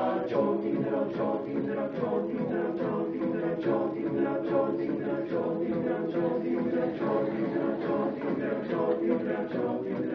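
A cappella group singing a wordless passage: held vocal chords under quick, even rhythmic syllables, about four a second, with no lyrics sung.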